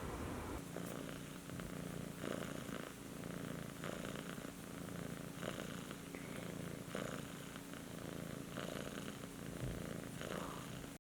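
Kitten purring, its purr swelling and easing in an even rhythm about every second and a half.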